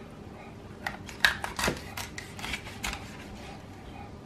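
Kitchen knife cutting up a raw rabbit on a plastic cutting board: a scatter of short clicks and knocks as the blade cuts through the small bones and strikes the board, most of them bunched in the middle of the clip.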